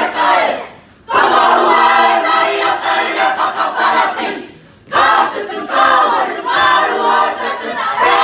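A group of school students singing loudly together in unison, in phrases broken by two short pauses, about a second in and about halfway through.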